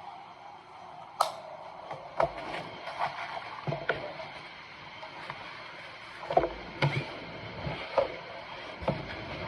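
Handheld fetal doppler's speaker output: a steady hiss with irregular knocks and thumps, and no even heartbeat rhythm.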